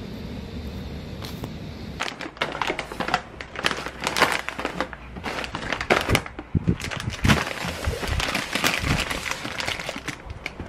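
Plastic potato-chip bags and a plastic bag of potatoes crinkling and rustling as they are handled and set down on a table, starting about two seconds in after a steady low background hum.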